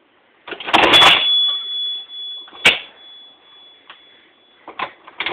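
Antique mechanical National Cash Register being rung up: the mechanism clatters, then its bell rings with one long ring of about three seconds. A sharp clack comes partway through the ring, and the mechanism clatters again near the end.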